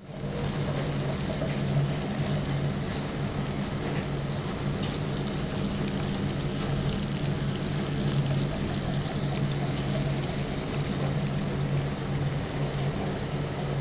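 Batter-coated whole Indian mackerel frying in hot oil in a non-stick pan on a low gas flame: a steady sizzle with fine crackling, over a steady low hum.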